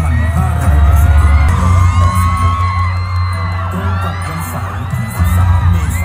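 Loud music over a stage sound system, with a heavy bass and a high, gliding sung melody.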